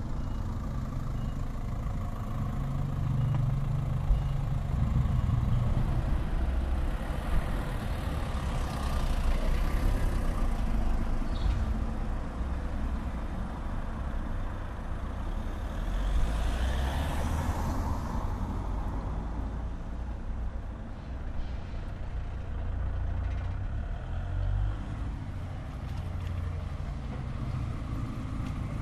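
Street traffic: a steady low rumble with vehicles passing, the two loudest about nine and seventeen seconds in, each swelling up and fading away.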